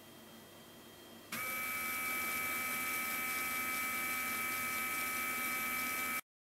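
Small DC electric motor on a 6 V battery, switched on about a second in and then running at steady speed with a high, even whine over a hiss. The sound cuts off abruptly near the end.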